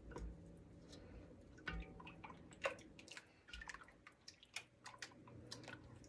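A utensil stirring a thickening homemade custard in a saucepan: faint, irregular taps and scrapes against the pot, with soft wet sounds.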